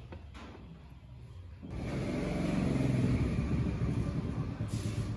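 A motor vehicle's engine rumble swells in about two seconds in and carries on steadily.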